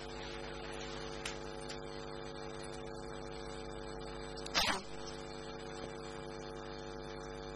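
Steady electrical mains hum, a buzz with a stack of even overtones, and one short burst of noise about halfway through.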